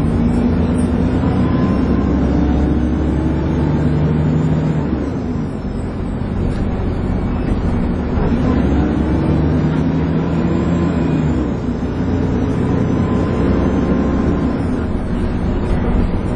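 Dennis Trident 2 double-decker bus running under way with the vacuum-cleaner-like whine enthusiasts call 'hoovering'. The engine note rises and holds twice as the bus pulls, easing off about five seconds in and again near twelve seconds.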